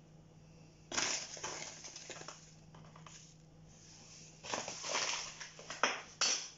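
Granulated sugar scooped with a spoon and tipped onto flour in a bowl: a run of grainy, crunching scrapes, with a few sharp clicks of the spoon near the end.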